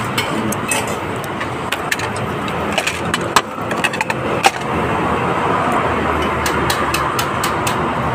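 Steady street traffic noise, growing louder about five seconds in, with scattered short sharp clicks and taps close by.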